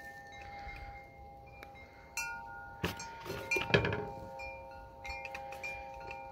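Chime-like ringing tones sound throughout, with shorter higher notes coming and going. Around the middle come a few sharp metallic clicks and knocks, the loudest just before four seconds in, from small carburetor parts and a screwdriver being handled as the needle seats go in.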